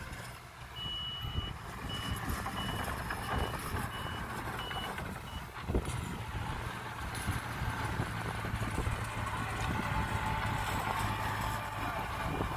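Reversing alarm on heavy construction machinery beeping, one longer beep then short beeps about two a second that stop about halfway through, over a diesel engine running steadily.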